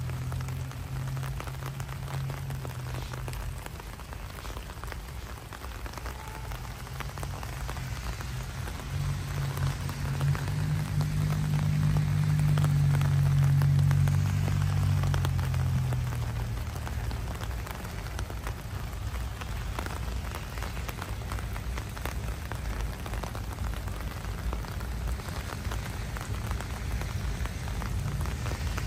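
Steady rain falling, with a scatter of small drop ticks close by. A low rumble swells up a third of the way in and fades again after about seven seconds.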